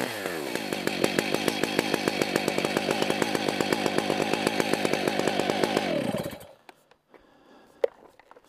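Stihl MS 880 Magnum chainsaw's big two-stroke single-cylinder engine dropping from a rev to idle, idling with an even pulse, then switched off about six seconds in and running down. A single sharp click follows in the quiet near the end.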